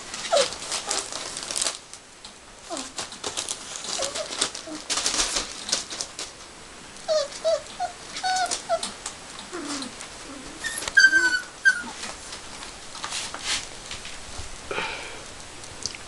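Airedale puppies whimpering and squeaking in short, high whines, with a louder, sharper squeal about two-thirds of the way through. Their paws scratch and rustle on newspaper throughout.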